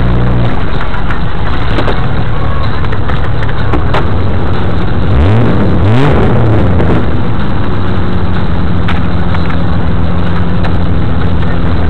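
A 4x4's engine running, heard from inside the cab, revving up briefly about halfway through and then settling back to a steady run. A few sharp knocks come through over the engine.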